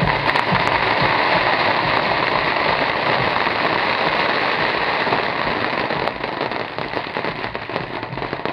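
Stage pyrotechnic fountains spraying sparks, a dense, steady hissing crackle that thins out after about six seconds.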